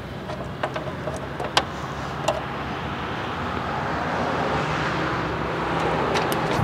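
A few sharp clicks as the lawn tractor's starter terminals are bridged, in the first couple of seconds and again near the end, with the starter not turning over. Under them a steady rushing noise with a faint low hum slowly grows louder.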